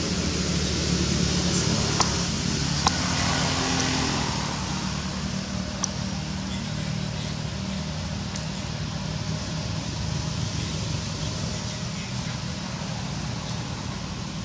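A motor engine running steadily, its hum louder for the first four seconds, with a few faint clicks.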